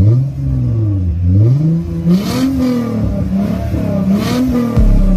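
Car exhaust as the engine is revved several times, the pitch rising and falling with each blip of the throttle.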